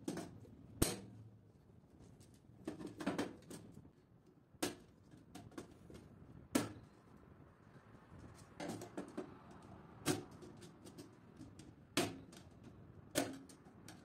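Miniature circuit breakers being clipped one by one onto a metal DIN rail: a series of sharp plastic clicks and knocks, about one every second or two, some in quick clusters.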